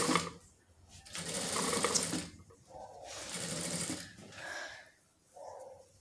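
Industrial sewing machine stitching through a thick crocheted rug in short runs with pauses between. The longest and loudest run lasts about a second, starting about a second in.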